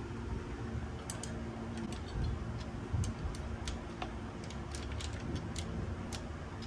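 Irregular light metallic clicks and ticks, about a dozen, from a wrench and Harley-Davidson shift-linkage hardware being handled and fitted, over a steady low hum.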